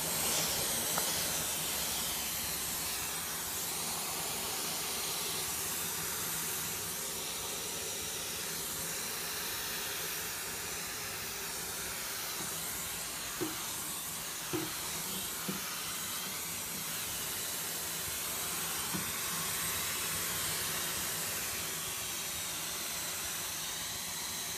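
Vacuum cleaner with a brush nozzle running steadily, a constant suction hiss as it is drawn through a cat's fur. Three short higher-pitched sounds come about halfway through.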